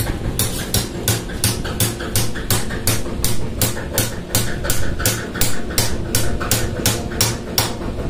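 Hammer striking metal in a steady rhythm, about three blows a second, on a pump motor's 6203 ball bearing and rotor shaft as the bearing is knocked off for replacement. A steady machinery hum runs underneath.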